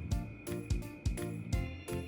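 Background music with a steady beat of about two drum hits a second and plucked-string notes.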